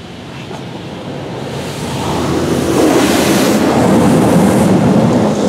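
High-pressure water jets from a PDQ LaserWash 4000 touchless car wash's spray arm hitting the car, heard from inside the cabin as a steady rushing hiss. It grows louder about two seconds in as the spray comes closer, and stays loud.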